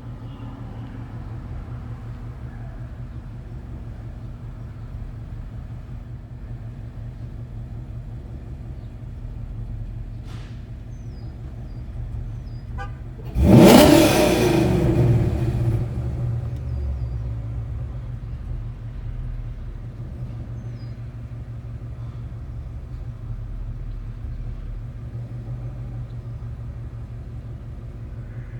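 2012 Ford Boss 302's 5.0-litre V8 idling steadily, then blipped once sharply about halfway through, the revs jumping up and falling back to idle over a few seconds. The engine has been throwing constant random misfire codes (P0300).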